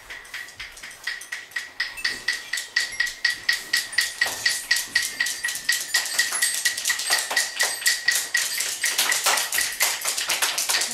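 Group of children clapping in a steady rhythm, about four claps a second, growing louder over the first few seconds. Until about nine seconds in, each beat also carries a ringing high note, as from a small percussion instrument struck in time.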